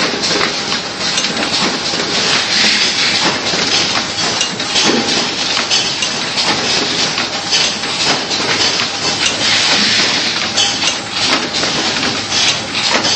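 Automatic biscuit cartoning machine running: a dense, continuous clatter of rapid clicks and knocks from its chain conveyors and carton-handling mechanism, over a steady hiss.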